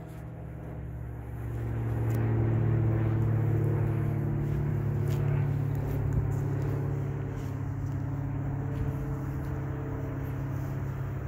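The Ford E-350 V8 engine of a 1998 Coachmen Catalina motorhome idling steadily, growing louder over the first couple of seconds.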